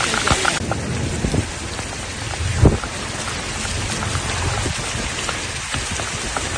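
Heavy rain pelting down on a surface, a dense steady hiss full of sharp individual hits, with one louder hit about midway. The sound shifts abruptly about half a second in.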